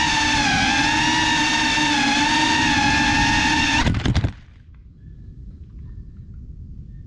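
Cinewhoop FPV drone's motors and propellers whining at a steady pitch that wavers slightly, recorded by its onboard GoPro. About four seconds in, it touches down among dry leaves with a brief clatter and the motors cut off suddenly, leaving faint outdoor ambience with faint high chirps.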